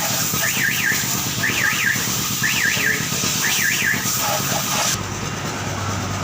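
A warbling electronic alarm tone sounds five times, about once a second, like a car alarm, over a steady hiss that cuts off about five seconds in.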